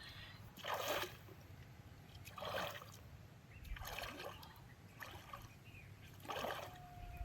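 Water splashing in short bursts, about one every second and a half, over a low steady background rumble.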